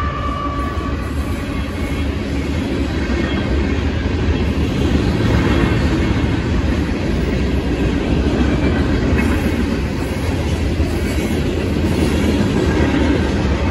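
Freight cars of a Union Pacific manifest train rolling steadily over a road crossing, a continuous low rumble with wheel clatter. A pitched tone fades out about a second in.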